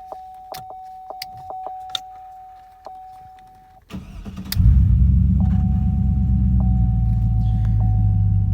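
Key clicks in the ignition over a steady high warning tone, then about four seconds in the 2006 Trailblazer SS's 6.0 L V8 cranks briefly, catches and settles into a steady idle. It starts on the first try with a freshly replaced ignition switch.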